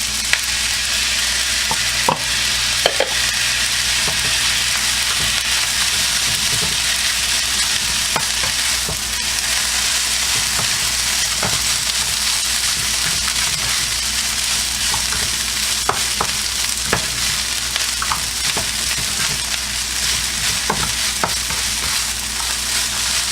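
Chicken fried rice sizzling steadily in an oiled pan as vegetables are stirred in, with the spatula clicking and scraping against the pan now and then.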